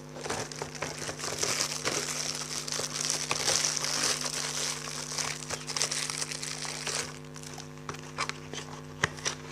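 Packaging crinkling and rustling as a power strip is packed back into it, stopping about seven seconds in, followed by a few light clicks and knocks.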